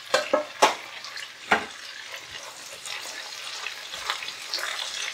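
Potatoes, eggplant and sliced onion frying in hot oil in a pan, with a steady sizzle. A few sharp knocks of stirring against the pan come in the first second and a half.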